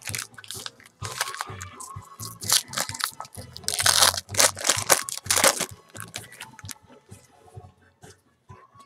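The foil wrapper of a 2014 Bowman jumbo baseball-card pack crinkles while the stack of cards slides out, and the cards rustle as they are sorted by hand. A run of crackles, loudest around the middle.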